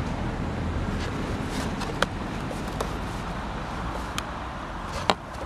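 A few sharp clicks and taps from a screwdriver and the plastic switch cover being handled, the loudest near the end, over a steady low outdoor rumble.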